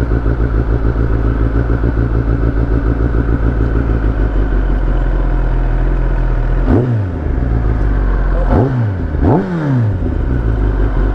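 Kawasaki Ninja ZX-10R's inline-four engine idling with a fast, even pulse, then blipped three times in the second half, each rev shooting up and dropping quickly back to idle.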